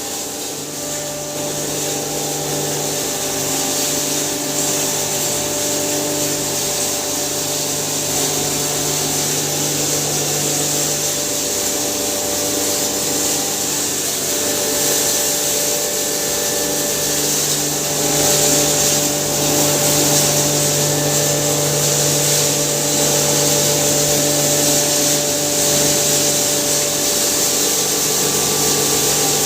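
Hammer mill grinder running steadily, grinding maize: a continuous motor hum with several steady tones under a loud high hiss, getting a little louder about eighteen seconds in.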